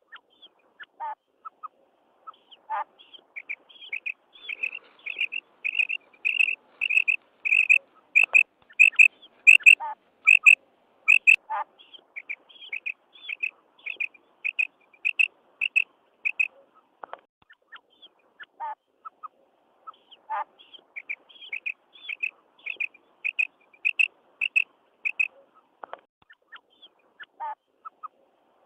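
Female common quail calling, the 'kirak' that quail hunters play as a lure: runs of short, high chirps at about two a second, with a pause of a few seconds midway.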